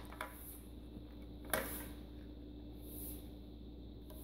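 Small plastic toys handled on a glass tabletop: one sharp click about a second and a half in, a few faint ticks, over a steady low hum.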